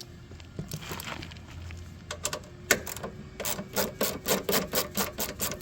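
A few knocks of tool handling, then from about three and a half seconds in a ratchet wrench clicking in quick, even strokes, about five a second, as a bolt on the snowblower is backed out.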